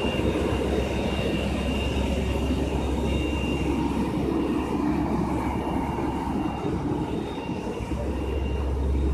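A fire engine's diesel engine running steadily at idle, a continuous low drone, with a faint high whine that comes and goes.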